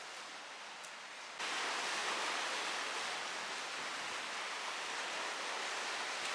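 Small sea waves washing over a rocky shoreline, a steady wash of surf. A quieter hiss comes first, and the surf cuts in suddenly and louder about a second and a half in.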